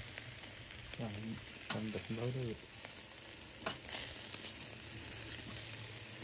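Chicken, pork chops and sausages sizzling on a charcoal grill grate, a steady fizzing hiss. A few sharp clicks of metal tongs against the grate as the meat is turned.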